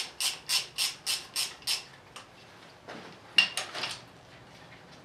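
Ratchet wrench being worked back and forth on a bolt, about seven quick ratcheting strokes at roughly three and a half a second, stopping about two seconds in. A little past three seconds come a sharp metallic clink with a brief ring and a short clatter of metal.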